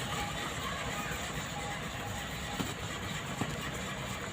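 An engine running steadily, with two short knocks in the second half.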